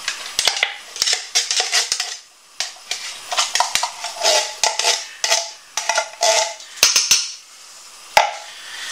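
An emptied tin of kidney beans knocked against the rim of a large stainless steel stockpot to shake loose the beans stuck in its bottom. It makes a quick run of sharp metallic knocks, each with a short ring, with a brief pause about two seconds in and a single knock near the end.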